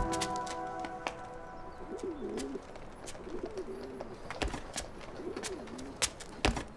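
Pigeons cooing, a few low rising-and-falling coos, with scattered sharp knocks of footsteps on a rooftop.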